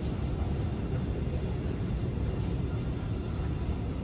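Steady low rumble of underground subway station background noise.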